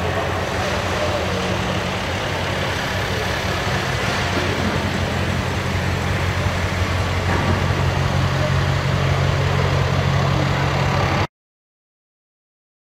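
BMW X5 SUV engine and exhaust running steadily at low revs, with a deep, even rumble that grows a little louder as the car rolls slowly past. It cuts off suddenly to silence about eleven seconds in.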